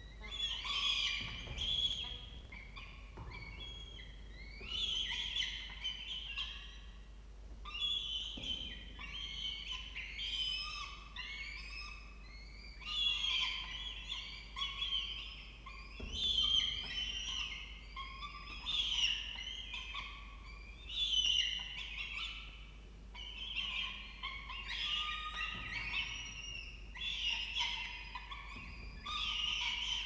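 Peregrine falcon chicks giving high-pitched, rapidly repeated food-begging calls in clusters every second or two as the adult female feeds them.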